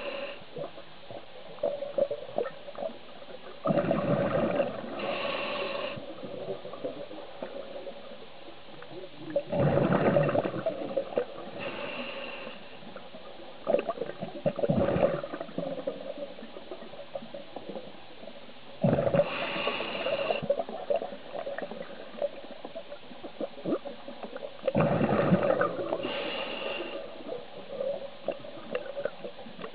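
Scuba diver breathing through a regulator underwater: five or six breaths a few seconds apart, each a hiss followed by a burst of bubbling exhaust, over a faint steady hum.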